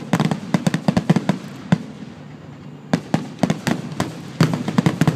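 Aerial fireworks shells bursting in a rapid barrage, many sharp bangs close together. They pause for about a second near the two-second mark, then resume just as densely.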